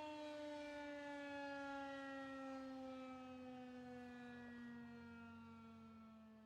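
Air-raid siren winding down: one pitched wail with overtones, sliding slowly lower in pitch and fading out near the end.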